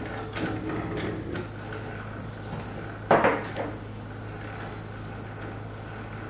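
Metal parts, a shaper feed nut and its screw, knocking and clanking on a cast iron surface plate as they are handled: a few light knocks in the first second, then one sharp clank about three seconds in and a softer one just after. A steady low hum runs underneath.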